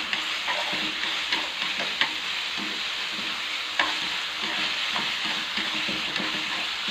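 Diced pork belly sizzling steadily in lard in a nonstick frying pan as it is stir-fried with wooden chopsticks and seared until it firms up, with a few sharp clicks of the chopsticks against the pan.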